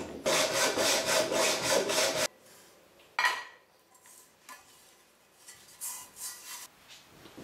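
Hacksaw cutting a thin sheet-metal vise cover, in quick, even back-and-forth strokes that stop abruptly a little over two seconds in as the cut finishes. A single sharp knock follows about a second later, then faint handling noises.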